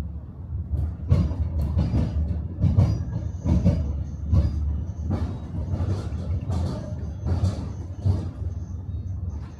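Tram running along the rails, heard from inside the car: a steady low rumble with repeated irregular knocks as the wheels clatter over rail joints and track.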